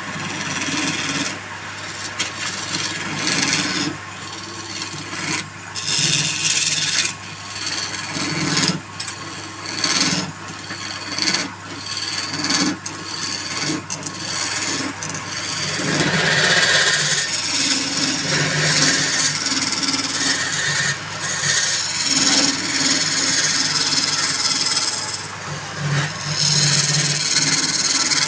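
Wood being worked on a running wood lathe: a loud rasping scrape of the tool against the spinning wood, in repeated passes broken by brief gaps, over the lathe motor's steady hum.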